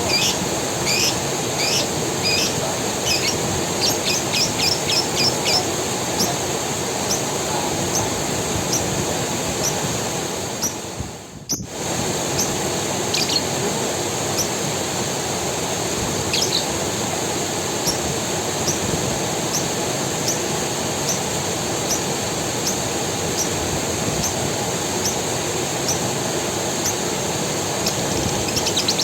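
Creek water running steadily, with a bird calling in short, sharp repeated chirps, thick in the first few seconds and only now and then after that. The sound dips briefly about eleven seconds in.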